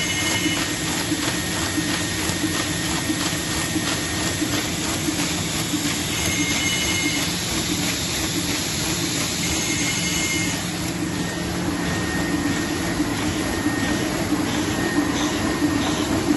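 MAN Roland 704 sheet-fed offset press running in production: a steady mechanical clatter with a fast, regular beat from the sheet feeding. Short high whistling tones come and go over it.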